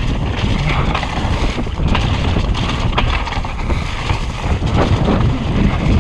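Wind buffeting the microphone as a mountain bike rides fast down a dirt trail, with a steady low rumble of tyres over the ground and frequent knocks and rattles from the bike over bumps.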